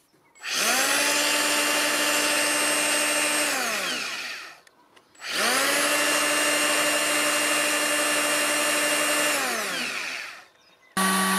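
Popoman 18V cordless planer's motor and twin-blade cutter drum running free with no load, twice. Each time it spins up to full speed within about half a second, holds a steady high whine for about three seconds, then winds down with falling pitch. A third run starts abruptly just before the end.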